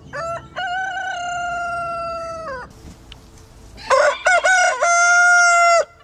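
A rooster crowing twice. The first crow is held on a long, slightly falling note. The second, louder crow starts about four seconds in with a few short broken notes, then a long steady note that cuts off sharply.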